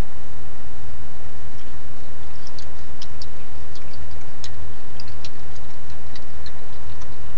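Steady loud hiss with a low pulsing hum from a trail camera's microphone. Over it, from about two seconds in, comes a scatter of small sharp clicks as a raccoon handles and chews food at a concrete block.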